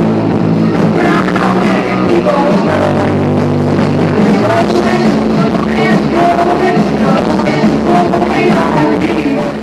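Live rock band playing loudly, with electric guitars, bass and a singer.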